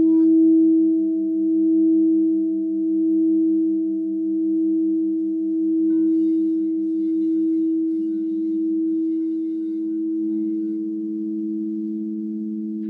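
Crystal singing bowls ringing together in long sustained tones of several pitches, with a slow pulsing waver in the sound. A lower bowl swells louder about eight seconds in.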